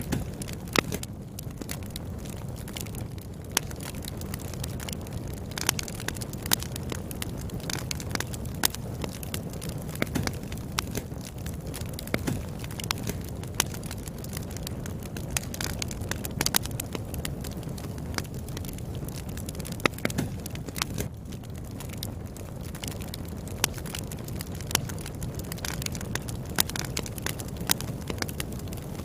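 Wood fire burning: a steady low rumble of flames with irregular sharp crackles and pops from the burning firewood, several a second.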